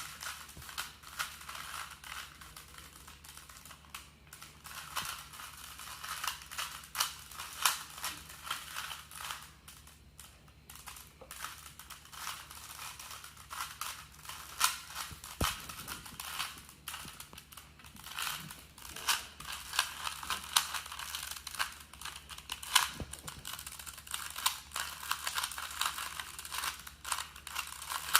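Plastic Rubik's Cube being turned quickly by hand, its layers clicking and rattling in irregular rapid bursts, with a few sharper snaps.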